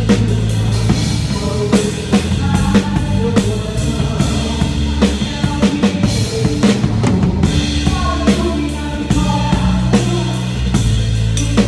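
Live band playing an instrumental passage of a gospel song: a drum kit keeps a steady beat with bass drum and snare hits over held low notes from the other instruments.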